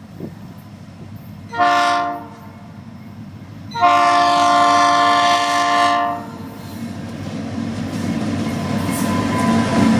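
Nathan P3 three-chime air horn on a Florida East Coast diesel locomotive sounding a short blast and then a long blast, the closing notes of a grade-crossing warning. After the horn stops, the rumble of the approaching locomotive grows steadily louder.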